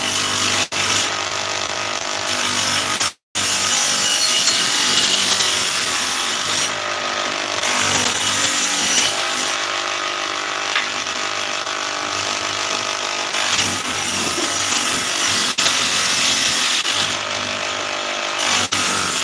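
A woodworking power tool running continuously with a steady motor hum and a rough hiss of wood being cut. The sound drops out completely for a moment about three seconds in.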